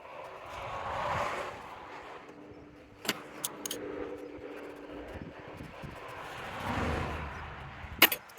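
Cars passing by on the road, one swelling and fading about a second in and another near the end, with a few sharp metal clinks between.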